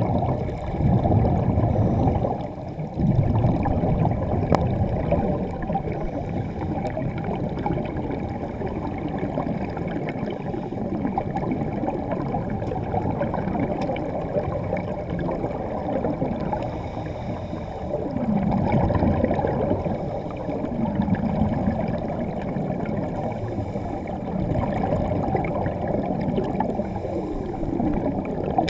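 Underwater bubbling and gurgling of escaping air from divers' helmets and breathing gear, heard muffled underwater, a steady low rush that swells louder now and then.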